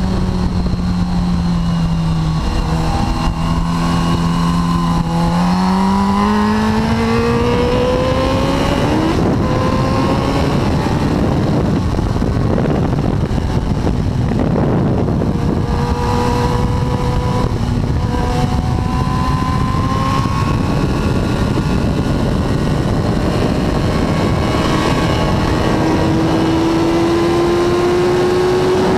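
Suzuki GSX-R1000 K4's inline-four engine heard onboard at track speed under heavy wind rush on the microphone. The engine note climbs under acceleration about a fifth of the way in, runs steadier through the middle, and climbs again near the end.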